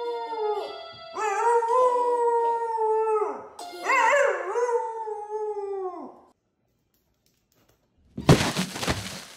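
A husky howls three long howls, each swooping up at the start and sliding down at the end, over faint steady notes from a toy electronic keyboard. Near the end a short, loud burst of thumping noise comes as a dog jumps off a sofa.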